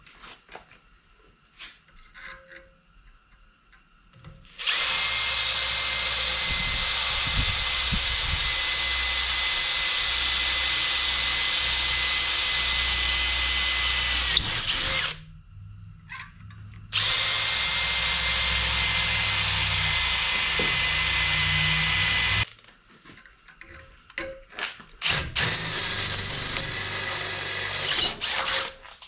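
Angle grinder with a flap disc grinding the plasma-cut edges of a 3/16-inch steel plate. It makes a steady high whine in two long runs, one of about ten seconds and one of about five, then short bursts near the end.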